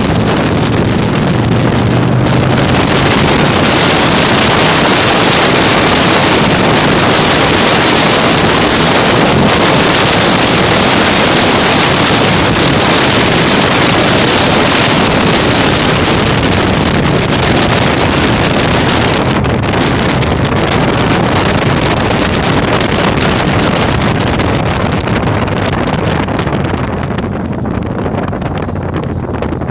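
Heavy wind noise buffeting the microphone on a moving Yamaha Virago 1100 motorcycle, over the low, steady run of its V-twin engine. The wind noise eases a little near the end.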